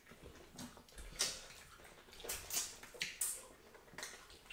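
Soft, wet eating sounds from fufu with slimy okra soup being eaten by hand: short squelches and mouth smacks at irregular moments.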